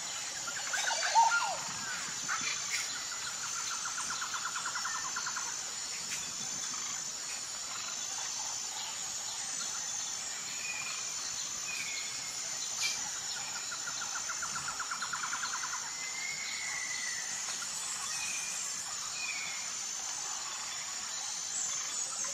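Birds chirping over a steady high insect buzz, with a louder sliding call about a second in and two rapid trills of a few seconds each.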